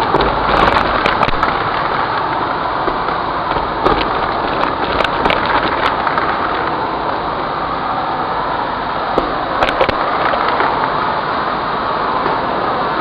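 Vacuum cleaner running steadily through a crevice tool, sucking up foil scraps, sequins and beads from a hard floor. Sharp crackles and clicks of debris rattling up the tool come in clusters about a second in, around four to five seconds in, and near ten seconds.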